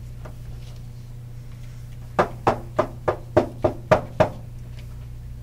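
Eight sharp knocks on a hard surface in quick, even succession, about four a second, each with a short hollow ring.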